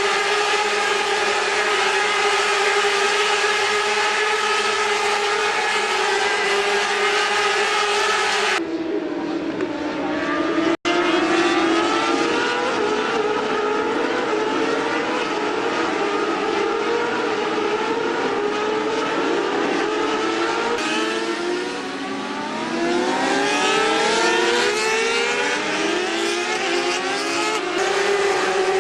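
Racing motorcycle engines at high revs. A steady high-pitched engine note changes abruptly about nine seconds in, and from then on several engines rev up in repeated rising sweeps as the bikes accelerate through the gears.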